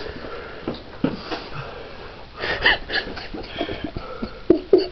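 A person sniffing and breathing with a wheezy edge, the after-effect of an extremely hot sauce burning the mouth. There is a louder sniff about two and a half seconds in, among a few small clicks and rustles.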